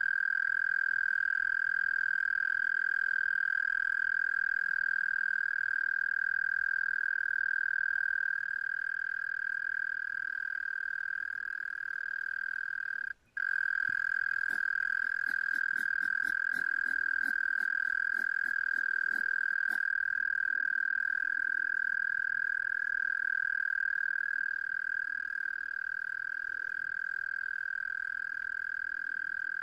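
A steady high whistling tone held without a break, which the uploader gives as a hedgehog's call. It cuts out for a moment about halfway through, and a run of about a dozen quick faint clicks follows.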